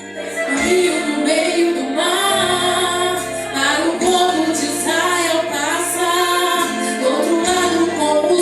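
A woman singing a Christian worship song with instrumental accompaniment, sustained low notes under the melody.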